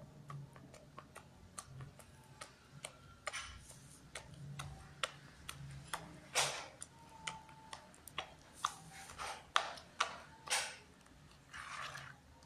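Sticky meatball batter being stirred by hand in a plastic bowl: irregular wet clicks and smacks, with short squelching swishes as the dough is worked.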